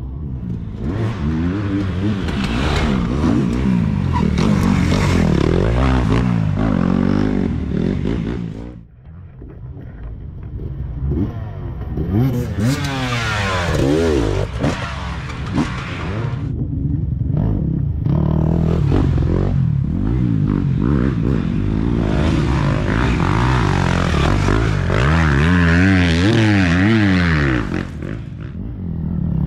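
Off-road dirt bike engines revving up and down as riders pass one after another on a muddy trail, pitch rising and falling with each pass. A GasGas dirt bike goes by close about fourteen seconds in, with short lulls between passes around nine and seventeen seconds.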